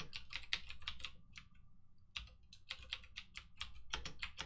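Typing on a computer keyboard: a quick run of keystrokes with a short pause near the middle before the typing resumes.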